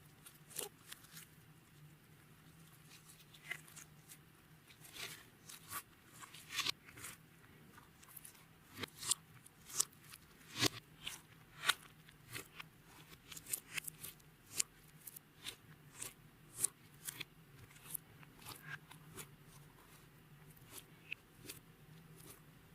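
Clear slime being worked and squished by hand, with irregular sticky clicks and crackles, busiest in the middle.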